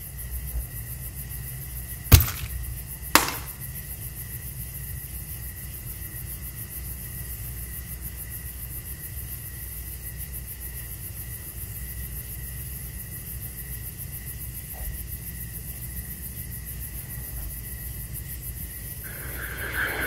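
A steady low drone and hiss with a thin high tone, cut by two sharp knocks about two seconds in and again a second later.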